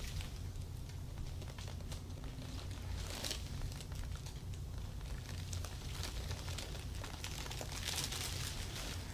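Soft rustling and brushing from people moving about, strongest about three seconds in and again near the end, over a steady low hum.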